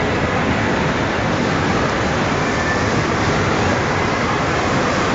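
Steady, loud din of a large, busy indoor amusement hall: a dense wash of crowd and ride noise with no single sound standing out.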